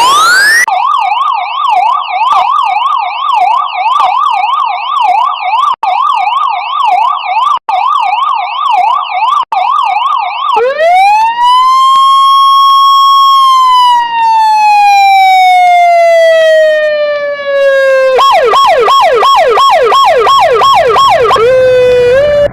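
Electronic emergency-vehicle siren sounds: a fast up-and-down yelp for about ten seconds, cutting out briefly three times, then a slow wail that rises, holds and falls away over about eight seconds, then a fast yelp again near the end.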